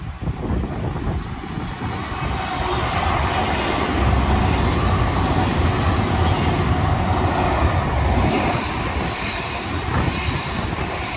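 Great Western Railway Intercity Express Train passing close by on the line, a dense rumble of wheels on rail. It builds over the first few seconds, is loudest for about four seconds in the middle, then eases as the train moves away.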